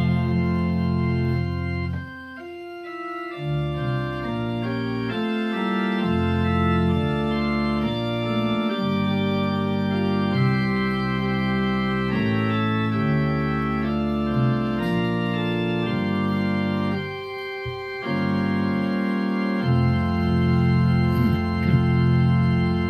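Organ playing slow held chords, briefly softer about two seconds in and again around seventeen seconds.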